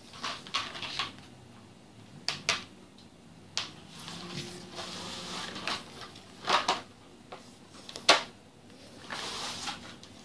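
A plastic cap being fitted onto the end of a PVC wiring tube: a string of plastic clicks and knocks with stretches of scraping, the sharpest knock about eight seconds in.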